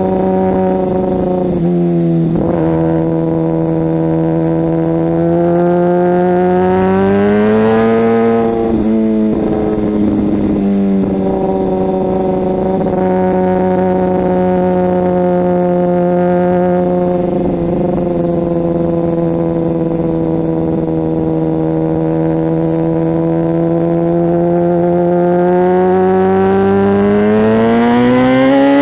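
Kawasaki ZX-10R's inline-four engine through a Mivv aftermarket exhaust, running steadily under way. The pitch climbs around seven seconds in, breaks off briefly near nine seconds, settles back to a steady note, then rises again near the end as the revs build.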